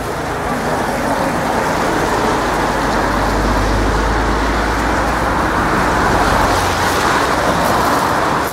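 Steady road traffic noise, with a deeper rumble from about three to seven seconds in.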